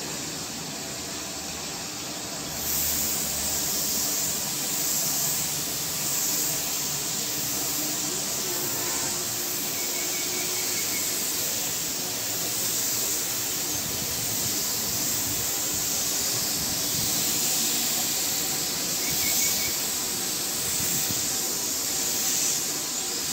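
Gravity-feed compressed-air spray gun spraying a red colour coat over white primer: a steady hiss that gets louder about three seconds in.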